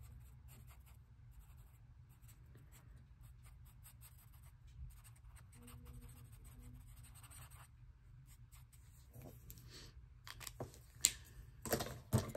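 Brush-tip alcohol marker stroking across sketchbook paper, a faint scratchy rubbing in short strokes. A few sharp clicks come near the end.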